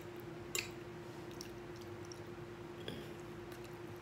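Chewing and eating sounds, with a sharp click of a metal fork against the plate about half a second in and a few fainter ticks later, over a steady faint hum.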